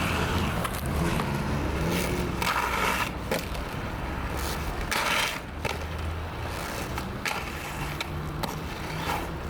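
Skateboard wheels rolling over street pavement, with scraping and a few sharp clacks of the board.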